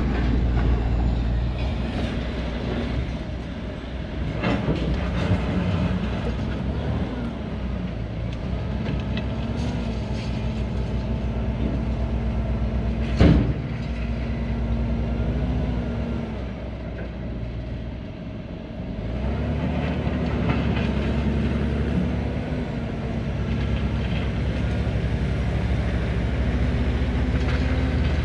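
Heavy machinery engines running under load, their pitch stepping up and down, with one sharp metallic bang about 13 seconds in.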